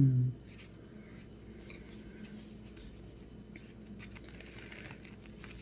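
A hummed 'mmm' trails off just at the start, then faint crunching and crackling of ice being chewed, with scattered small clicks that grow busier in the second half.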